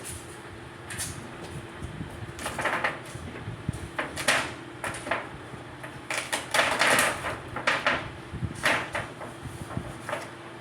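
A series of short, irregular scraping and rubbing noises, about six or seven, clustered near the middle, over a faint steady hum.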